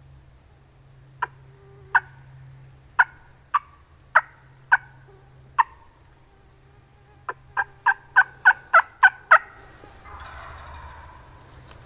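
Turkey yelping: single sharp yelps spaced out at first, then a quicker run of about eight yelps. A brief rustle follows near the end.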